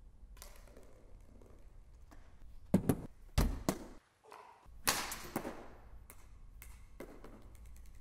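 Floorball stick striking a plastic floorball and the ball bouncing and knocking on a wooden parquet floor. A series of sharp taps and knocks that ring in a reverberant hall, loudest in a cluster from about three to five and a half seconds in, then lighter taps.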